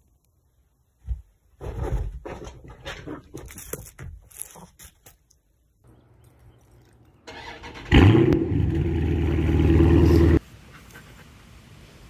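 Scuffling and knocking, then a small motor starts with a short rise in pitch. It runs loud and steady for about two and a half seconds, then cuts off suddenly.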